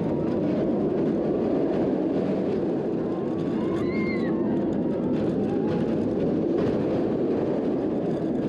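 Bolliger & Mabillard steel roller coaster train running at speed through its elements: a steady roar of wheels on the steel track mixed with wind rushing over the onboard camera.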